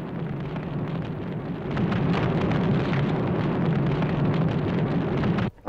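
Rumbling, crashing sound effect of a giant vehicle falling through collapsing ground into a smoking pit. It gets louder about two seconds in and cuts off sharply near the end.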